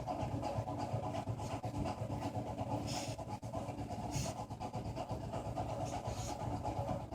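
Steady rumbling, rushing background noise that almost sounds like a train going by, with a few short hisses in the middle.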